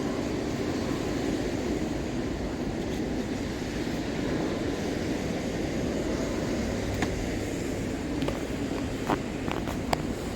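Steady low rushing noise, with a few sharp clicks near the end.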